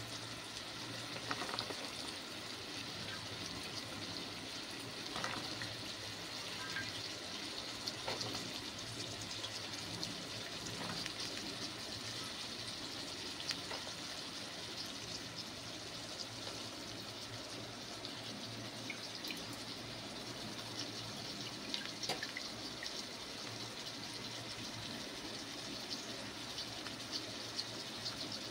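Brinjal wedges, green turkey berries, tomato and green chilli sizzling steadily in hot oil in a kadai, with scattered small crackles and pops.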